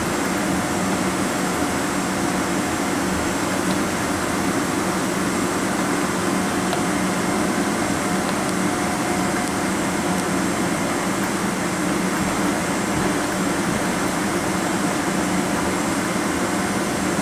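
Steady cabin drone of a Boeing 777-200ER taxiing with its turbofan engines at idle, mixed with the hiss of the cabin air conditioning, heard from inside the cabin. The level holds even throughout, with a few constant hums and no spool-up.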